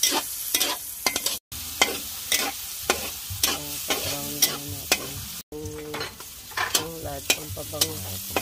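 A metal spatula stirring and knocking against a wok, about twice a second, over a steady sizzle of food frying in hot oil.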